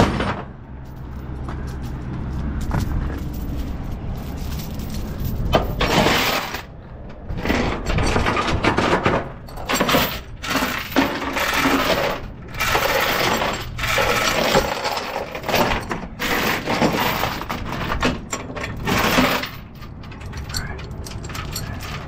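Steel securement chain clanking and rattling as it is handled, pulled through and dragged across the flatbed trailer's metal deck, in irregular bursts starting about five seconds in and easing off near the end.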